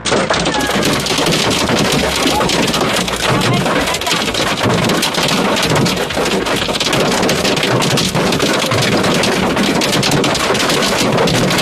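Hail and heavy rain hitting a car's windshield and roof, heard from inside the car: a loud, dense, steady clatter of countless small impacts.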